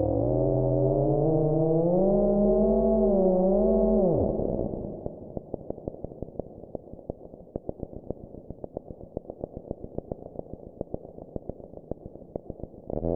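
Homemade square-wave synthesizer drone, a buzzy tone that wavers and bends up and down in pitch, dropping away about four seconds in. Fast irregular clicking and crackle follow, until a loud steady drone cuts back in near the end.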